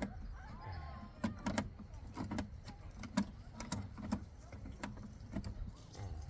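Irregular small metal clicks and clinks from hand work on the little nuts that hold the jacks on the back of a mixing board, over a low steady rumble.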